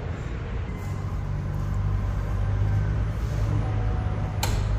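A steady low vehicle hum as the MPV's rear sliding door opens, with a sharp click near the end as the door comes to its stop.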